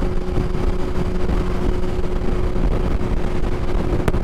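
Suzuki Hayabusa's inline-four engine running at a steady cruise under way, with wind noise over the microphone. A brief click near the end.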